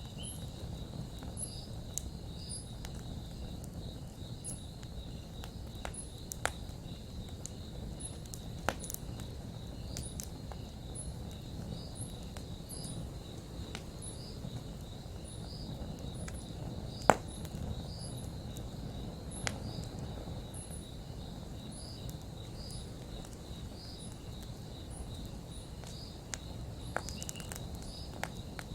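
Campfire burning over a low steady rumble, with scattered sharp crackles and pops, the loudest about halfway through. An insect chirps steadily in the background, about once a second.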